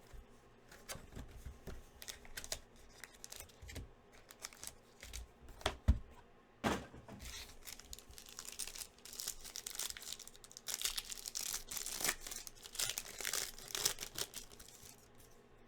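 Trading-card pack wrappers being torn open and crinkled, with sharp clicks and rustles of cards being handled. The crinkling is busiest in the second half.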